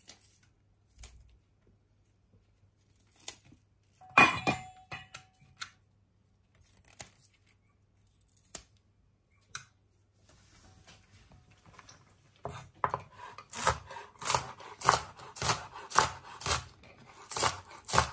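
Knife cutting spring onions. First come scattered snips and clicks as the flower heads and stem ends are cut off, with one louder clack and a short ring about four seconds in. Then, about two-thirds of the way through, steady chopping of spring onion stems on a wooden cutting board begins, about three strokes a second.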